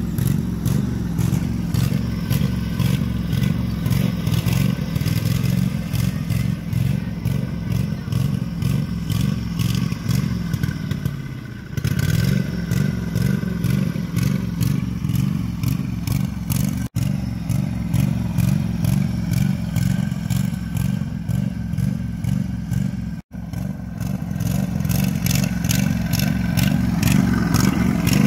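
Small single-cylinder-style riding lawn mower engine running steadily under load with a low, even pulse. About halfway through it slows briefly, then picks up again.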